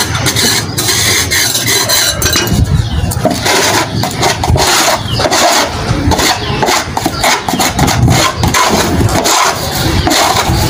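Small hand tool scraping soil and debris across a brick floor in repeated, irregular rough strokes.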